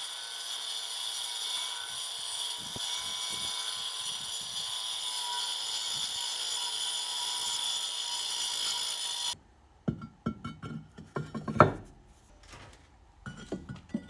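Angle grinder with a diamond blade cutting through a fireclay oven floor plate, a steady high-pitched grinding that stops abruptly about nine seconds in. Then a run of knocks and scrapes as the cut stone plate is set down and shifted into place.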